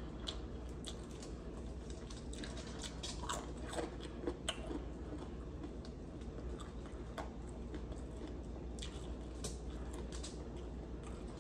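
Quiet eating of fried chicken: chewing, with small irregular crackles of crispy breading as a piece is pulled apart by hand.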